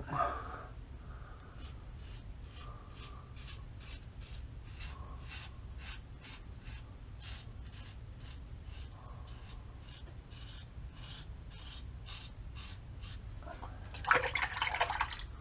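3D-printed injector safety razor with a Schick Proline injector blade scraping through lathered stubble in a quick series of short strokes. Near the end comes a louder burst of splashing water, as at the sink.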